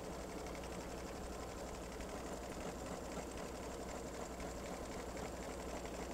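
Home embroidery machine stitching steadily, running a bean stitch (a triple stitch, two stitches forward and one back) around the hooped mug rug to seal its edges. The needle keeps a fast, even rhythm at a constant level.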